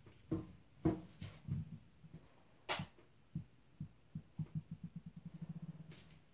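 A young Dogue de Bordeaux gnawing at her rubber ball: scattered soft knocks and clicks, with one sharper click a little under halfway. Near the end comes a quick run of low pulses, about ten a second, that fade out.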